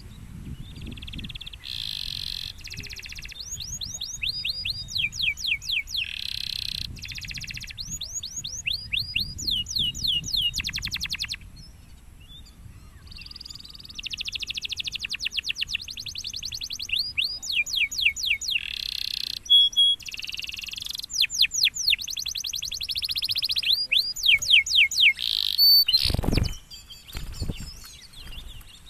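Domestic canary singing: fast trills of high notes, each sweeping downward, in runs of a second or so, with a pause of about two seconds around the middle. Near the end there is a brief low thump.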